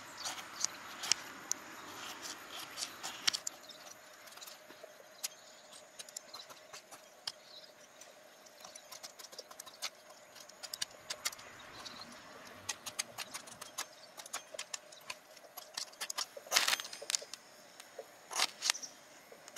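The squared edge of a metal spoon scraped again and again down a ferrocerium fire-starter rod to throw sparks onto tissue tinder: short, sharp scrapes in uneven runs, strongest in a quick flurry from about three-quarters of the way in.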